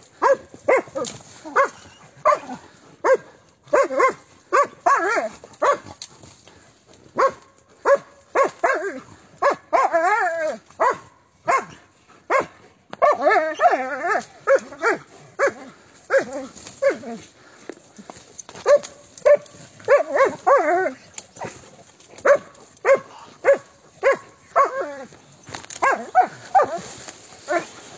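Dogs barking repeatedly in short, quick bursts as they attack a porcupine, with a couple of longer wavering cries about a third of the way in and around halfway.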